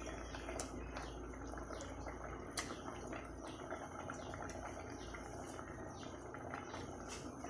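Vegetables simmering in water in an open aluminium pressure-cooker pot on a gas burner: a faint, steady bubbling hiss broken by irregular small pops and ticks from bursting bubbles, one louder tick about two and a half seconds in.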